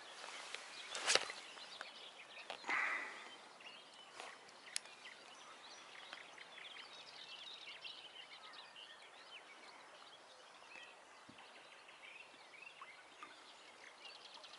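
Songbirds chirping and singing, many short calls overlapping. A sharp knock about a second in and a short burst of noise near three seconds.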